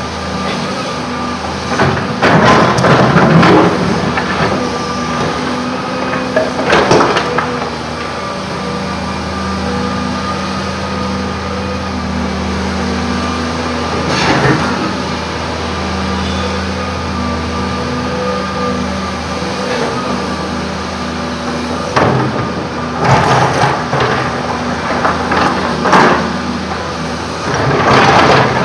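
Volvo EC210 hydraulic excavator running steadily under load, with its bucket scraping and knocking through rocky soil in several loud bursts, the busiest near the end.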